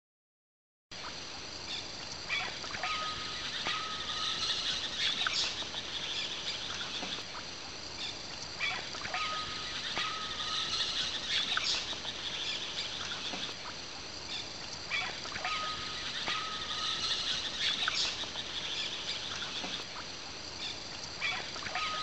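Rainforest ambience that starts suddenly about a second in: a steady high insect drone with bird whistles and chirps. The same pattern of calls repeats about every six seconds, like a looped recording.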